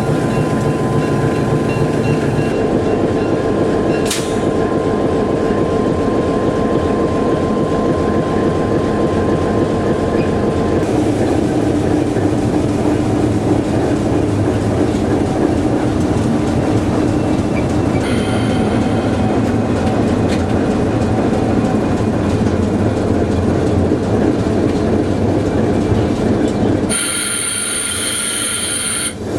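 D2 diesel locomotive running steadily while switching coaches, with the rumble of rail equipment. Near the end a high, steady squeal sets in.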